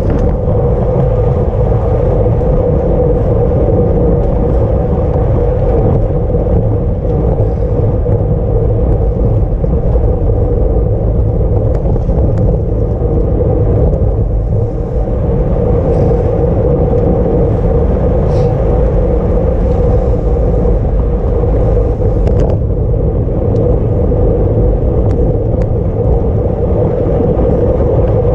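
Loud, steady rumble of wind over a camera riding on a bicycle at racing speed.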